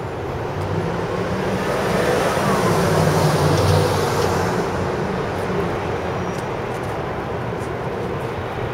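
City street traffic: a steady hum of passing vehicles with a low engine rumble that swells about two to four seconds in.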